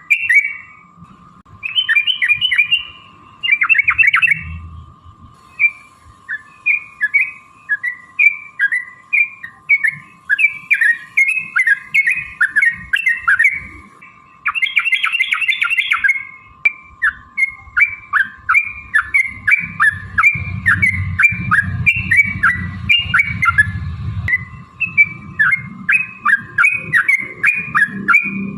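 Yellow-vented bulbul (trucukan) singing. A long string of short, bubbly chirps comes about two a second, broken by quick rapid-fire runs a couple of times, over a faint steady hum.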